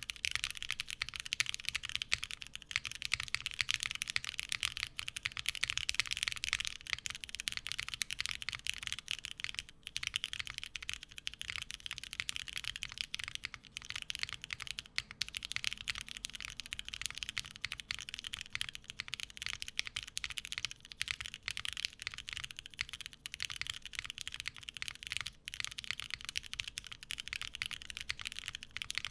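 Continuous typing on a gasket-mounted Bowl Oblique mechanical keyboard with lubed Cherry MX Black Hyperglide linear switches, an aluminium plate and GMK keycaps: a fast, even stream of key presses with a few brief pauses.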